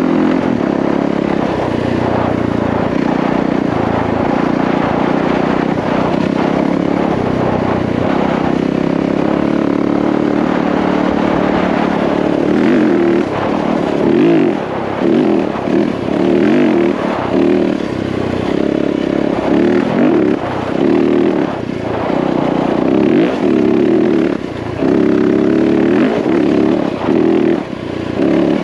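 Yamaha WR450F's single-cylinder four-stroke dirt bike engine running while riding. About halfway the throttle starts rolling on and off, so the revs rise and fall about once a second.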